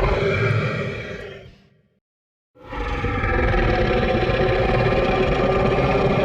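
Edited kaiju monster roar sound effects for a Ghidorah-type creature: one roar fades out over the first two seconds, and after a short silence a second long, steady roar begins.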